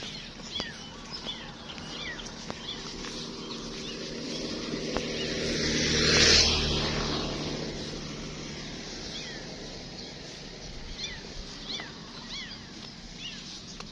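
A motor vehicle passes, its engine and road noise building to a peak about six seconds in and then fading as its pitch drops. Birds chirp throughout with short, quick falling notes.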